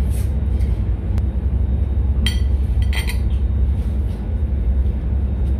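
Metal cutlery clinking twice against a ceramic plate, about two and three seconds in, as the fork and knife are set down. Under it runs a steady low rumble of the ship's machinery.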